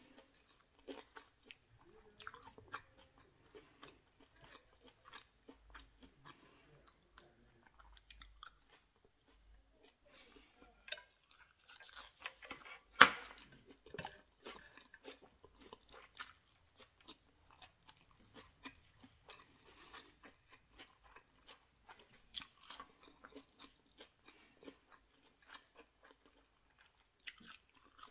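A person chewing grilled skewered barbecue meat and rice, a steady run of small wet mouth clicks and smacks. One sharper knock stands out about halfway through.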